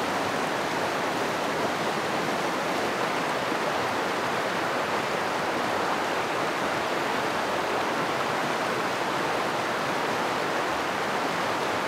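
Rushing water, a steady, even rush with no breaks.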